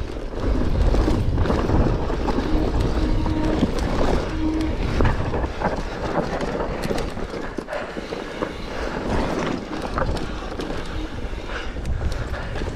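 Mountain bike descending loose, rocky singletrack: tyres rolling over rock and gravel, with the bike clattering in frequent clicks and knocks over the bumps and a low rumble of wind and rushing air.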